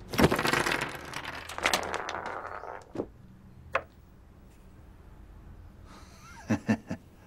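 A zipper on a tall black leather boot rasping as it is pulled up, running about two seconds. After it come two sharp clicks, then a few short, fainter sounds near the end.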